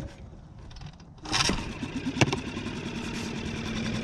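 4 hp Suzuki outboard motor pushing a canoe along at speed. It is subdued for the first second, then a loud rush comes in about a second in and a sharp click a second later, after which the motor drones steadily.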